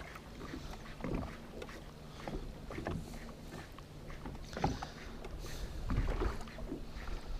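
Choppy lake water slapping and lapping against the hull of a fishing boat in irregular strokes, over a low rumble and a faint steady hum.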